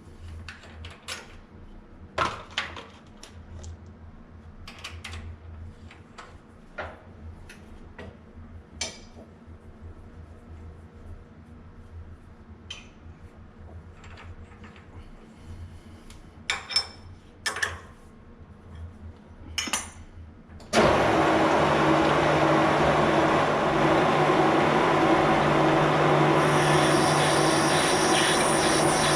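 Metal clinks and knocks as parts and tools are handled at a metal lathe. About 21 seconds in, the lathe starts up suddenly and runs with a steady hum, and a high whine joins in near the end.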